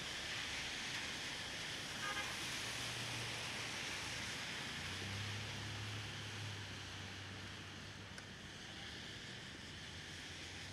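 Steady hiss of rain and traffic on a wet city street, with a brief car horn toot about two seconds in and a vehicle engine's low hum passing in the middle.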